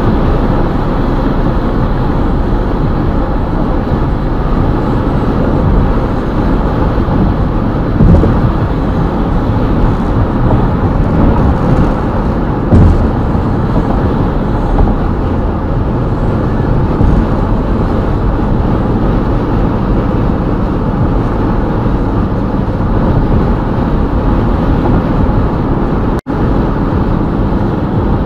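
Steady road noise of a car driving on the highway, a rumble of tyres and engine, with two short thumps about 8 and 13 seconds in. The sound cuts out for an instant near the end.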